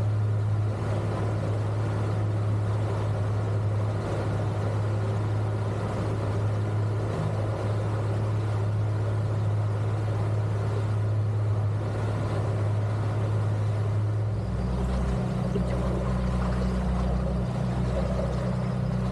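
Twin 250 hp outboard motors running steadily as the boat trolls, a low hum over a rush of wind and wake water. About fourteen seconds in the engine note changes and drops lower.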